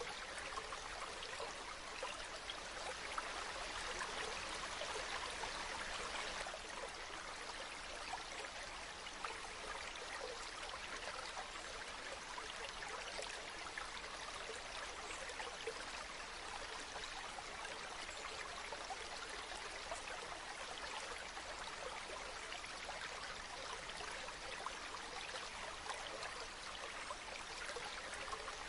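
Waterfall: a steady rush and hiss of falling, splashing water, slightly louder for a few seconds near the start.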